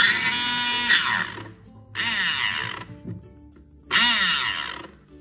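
Small electric motor of a mini portable sewing machine whirring in three short bursts about two seconds apart, its pitch rising and falling as it spins up and stops each time. The motor runs freely because its gear is not meshing with the drive gear, so the needle does not move.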